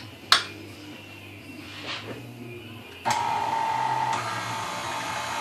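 An electric pasta machine's motor switches on about three seconds in and runs steadily with a whine, rolling noodle dough. A single sharp knock comes shortly before, near the start.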